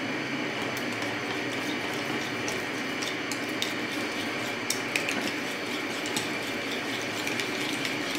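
Spoon stirring and whipping a thick yogurt masala in a glass bowl, with scattered light clicks of the spoon against the glass, over a steady background hum.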